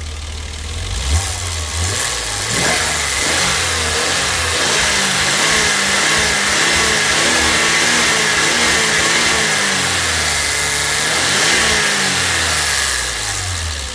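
BMW M20B20 straight-six engine, fully warmed up, revved up from idle about a second in, held at raised revs with the pitch wavering, then dropping back to idle near the end. It runs smoothly after a cylinder-head repair and new camshaft.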